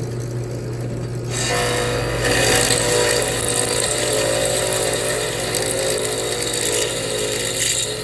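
Drill press running at top speed, with a rounded-off steel rod spinning in the chuck. About a second in, the rod is pressed into a hole in a hardened steel knife blade, and a steady grinding with a ringing tone in it rises over the motor hum. The friction heats the spot to soften the hardened blade so it can be drilled.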